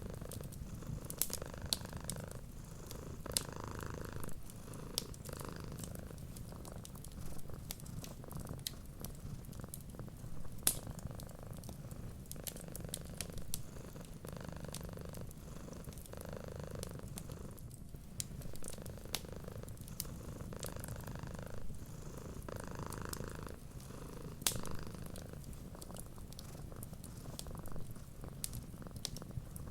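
Cat purring steadily, the purr swelling and fading every couple of seconds with its breathing, under the scattered crackles and pops of a wood fire.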